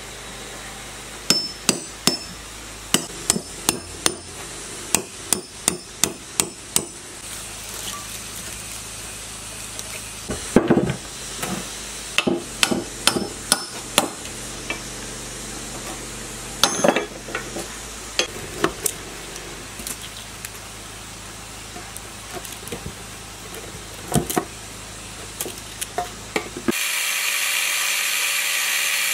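Hammer driving a chisel into the old copper windings of a water-turbine generator's cast-iron stator housing: many sharp metal strikes in irregular runs, quick in places, with pauses between. Near the end an angle grinder starts cutting metal with a steady whine.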